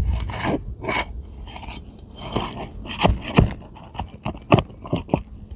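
A tool scraping and prying under asphalt roof shingles to pull out roofing nails: rough scraping on the gritty shingles, broken by a string of sharp clicks and knocks.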